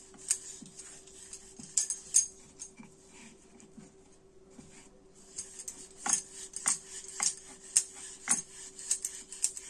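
Wooden rolling pin working a stuffed paratha on a wooden rolling board, with repeated light clacks and knocks as it rolls. The clacks thin out in the middle while the dough is pressed by hand, then pick up again. A faint steady hum runs underneath.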